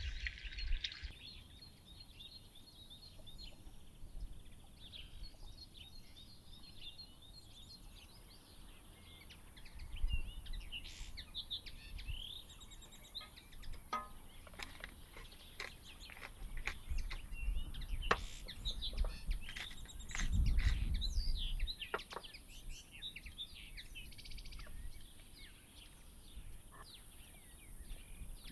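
Small songbirds chirping and twittering on and off, over a steady high hiss, with a few low rumbles now and then.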